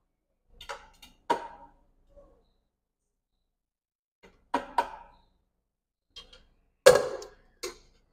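A metal utensil knocking and scraping against a frying pan and the plastic jar of a blender while fried onions are moved into it: a handful of separate short clatters, two close together about halfway through and the loudest near the end.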